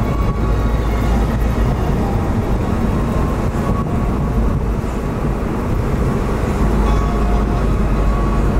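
Steady rumble of road and engine noise heard from inside a car driving along a highway.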